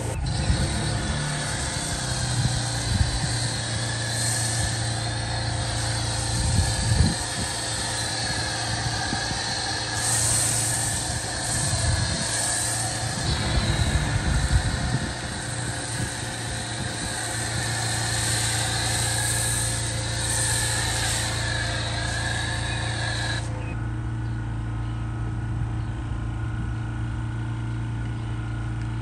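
A pressure washer runs steadily with the hiss of a foam cannon spraying. The spray cuts off sharply about two-thirds of the way through, while the machine's steady hum carries on.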